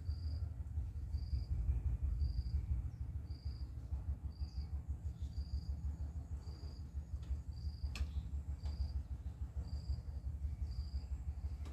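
An insect's short, high chirp repeating at a steady pace, a little more than once a second, over a steady low rumble. There is one sharp click about eight seconds in.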